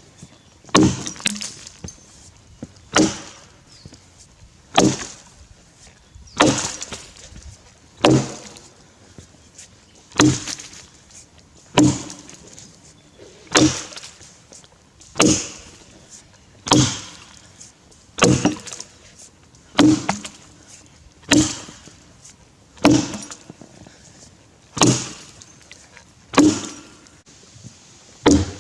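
Tassie-pattern axe chopping into a grey gum log, a steady rhythm of sharp strikes about every second and a half to two seconds, each with a short ringing tail.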